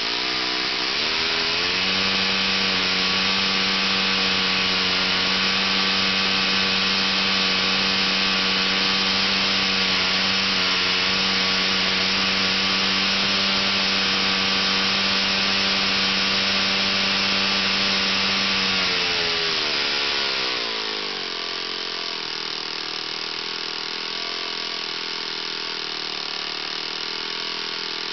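RCV 60 rotating-cylinder four-stroke model airplane engine running with its 14x9 propeller, speeding up about a second in and holding a steady high speed. About 19 seconds in it is throttled back, the pitch falling over a couple of seconds, and it runs on steadily at a lower, quieter speed.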